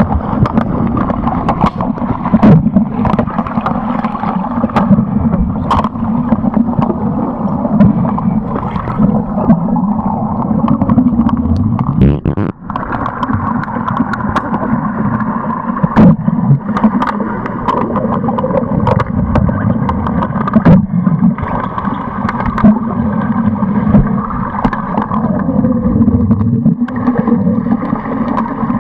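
Swimming-pool water heard by a submerged camera: a steady muffled rushing and bubbling, broken by many sharp clicks and knocks.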